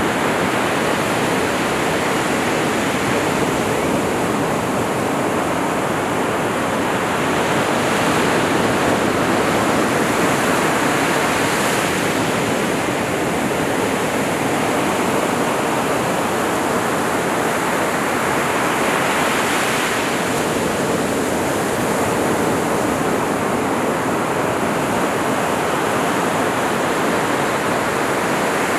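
Ocean surf on a sandy beach: a steady wash of breaking waves that swells and eases every several seconds as each wave breaks and runs up the sand.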